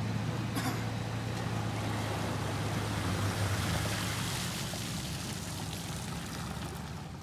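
Ford F-150 pickup's engine running as it pulls an empty boat trailer up the ramp out of the water, a steady low hum that fades after about three and a half seconds as the truck moves off. Water runs off the trailer.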